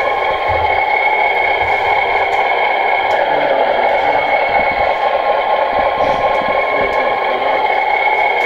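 Simulated truck diesel engine idling steadily, played by an RC truck's electronic sound module through its small onboard speaker.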